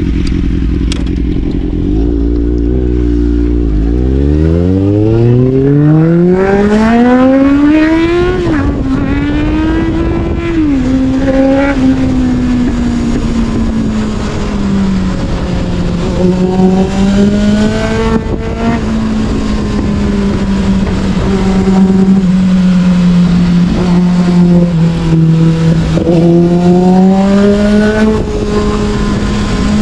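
Sportbike engine pulling hard from low revs: its note climbs steeply from about four seconds in, drops twice as gears are changed, then holds a steady cruising note that rises and falls a little. Wind rushes over the microphone throughout.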